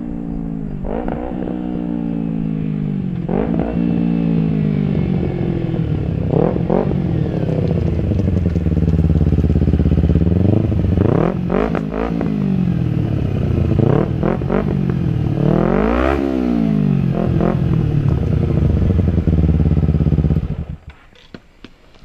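Kawasaki Ninja 250's parallel-twin engine through a Leo Vince GP Corsa slip-on exhaust, revved again and again, its pitch rising sharply and falling away between each blip. The sound drops away sharply near the end.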